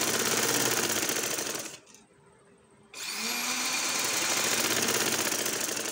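Domestic sewing machine stitching a straight seam through fabric at speed. It stops about two seconds in and starts again a second later, picking up speed as it restarts.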